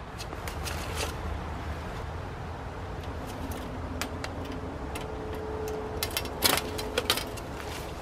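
Metal clicks and rattles of a wire-mesh live animal trap being handled and its door opened by hand, with a few sharp knocks a little after six and seven seconds in, over a steady low rumble.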